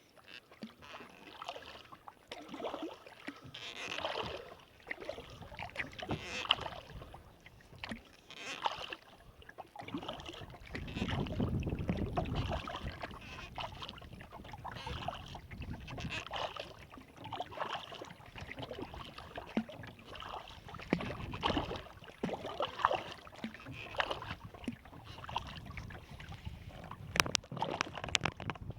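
Kayak paddle strokes: the blade dipping and pulling through lake water every two seconds or so, with splashing and dripping, and a few sharp clicks near the end.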